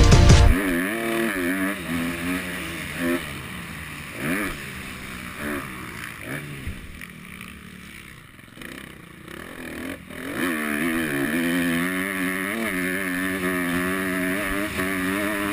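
Motocross bike engine heard close up from an onboard camera, revving up and down with the throttle through the track's turns. Between about six and ten seconds in the engine is eased off and quieter, then it picks up and holds at higher revs.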